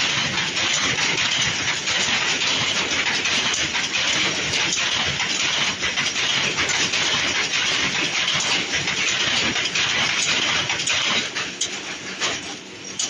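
Reed mat weaving machine running: a dense, steady mechanical clatter of many fine rapid clicks from its row of weaving heads, easing off briefly near the end.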